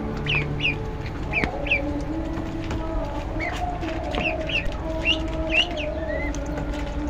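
Ducklings peeping: many short, high chirps, a couple or so each second, over a low, wavering held tone.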